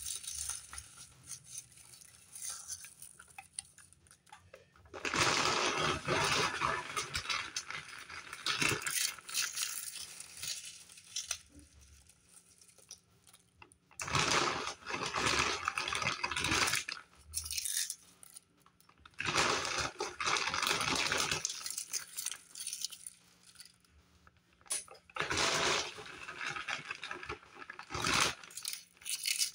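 Ripple-cut potato chips crunched and crumbled by hand over a casserole, crackling in about four bursts a few seconds apart with quieter stretches between.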